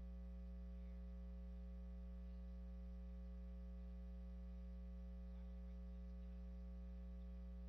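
Faint, steady electrical mains hum, a low buzz with a ladder of higher overtones, and no other sound.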